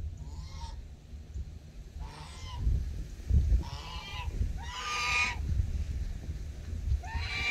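Five short pitched calls from farm animals, spaced one to two seconds apart, the fourth the loudest, over a low rumble.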